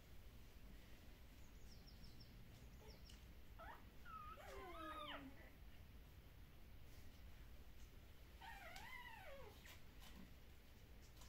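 Very young Shiba Inu puppy whimpering faintly while being handled for early neurological stimulation exercises: a cluster of thin, wavering squeaky whines about four seconds in, and another wavering whine a little after eight seconds.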